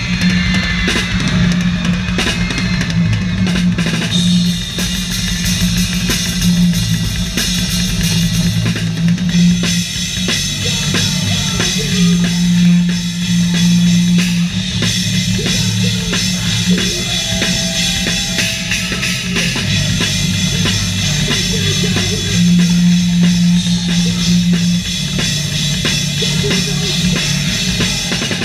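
Live rock band playing, with the drum kit up front: fast bass drum, snare and cymbals over guitar and low held notes.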